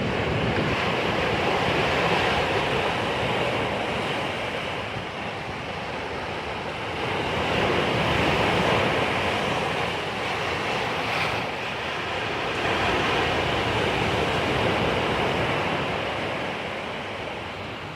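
Sea waves breaking and washing on the shore, a steady rushing that swells and fades in slow surges every few seconds, with some wind on the microphone.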